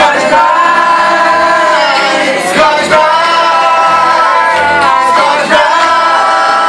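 Live group singing: several voices holding long notes together, shifting pitch a few times.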